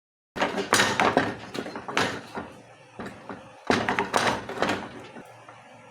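Irregular knocks and clatter of kitchen utensils and cookware, cutting in suddenly about a third of a second in, loudest in the first few seconds and dying down near the end.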